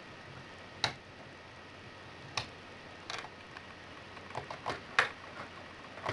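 Small metallic clicks from a hook pick and tension wrench working the pins of a MILA Evolution euro profile cylinder. There are about ten irregular clicks, and the loudest comes about five seconds in.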